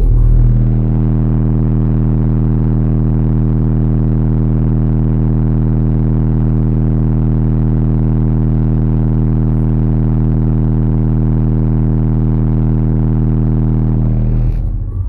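Car subwoofers playing a loud, steady 33 Hz bass test tone for an amplifier clamp test. The tone holds unchanged and cuts off near the end.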